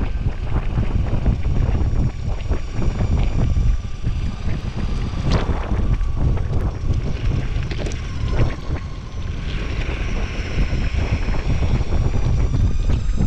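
Wind buffeting the camera's microphone while riding an electric skateboard, over the steady rumble of its wheels rolling on a concrete path, with a few short knocks.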